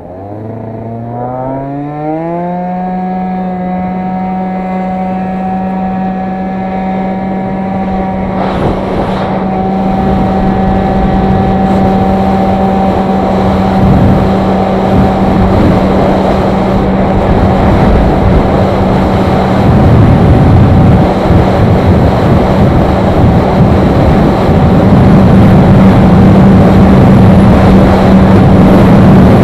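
Aprilia SR50R scooter's 50cc two-stroke single-cylinder engine at full throttle, its note rising for about two seconds and then holding one steady high pitch as the speed builds. Wind rush on the onboard microphone grows steadily louder with the speed.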